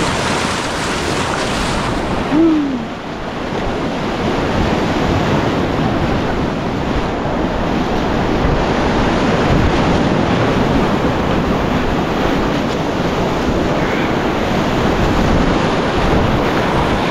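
Rushing whitewater of a river rapid, a loud steady roar of water. About two and a half seconds in, a short call falls in pitch over it.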